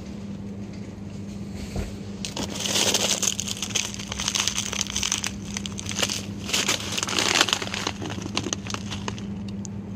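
Plastic food packaging crinkling and rustling in the hands, in irregular bursts from about two seconds in until near the end. A steady low hum runs underneath.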